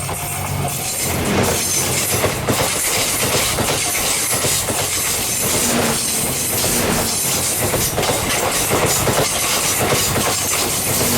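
Series 87 Twilight Express Mizukaze diesel-electric train passing close by, its wheels clattering over the rail joints in a steady rhythm.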